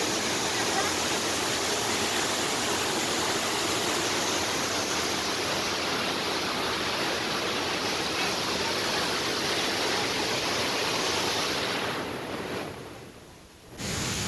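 Steady noise of a waterfall, water pouring over rock. Near the end it sinks away over a second or two, then cuts back in suddenly.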